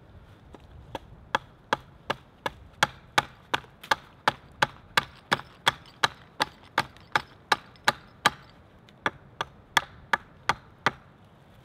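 Hatchet chopping into an upright wooden stick with quick, regular light strokes, about three a second, with a brief pause near the two-thirds mark.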